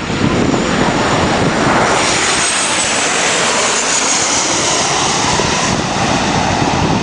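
Airbus A380 jet airliner at takeoff power climbing out past, its four Rolls-Royce Trent 900 turbofans making a loud, steady rush. The pitch sweeps down and then back up about halfway through as it passes.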